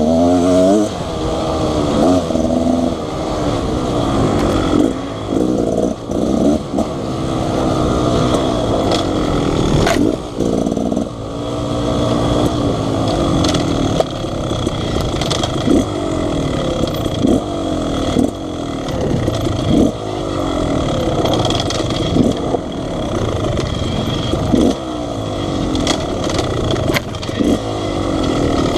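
Beta Xtrainer 300 two-stroke dirt bike engine under way, revving up and dropping back again and again as the throttle is opened and closed, with a few sharp knocks along the way.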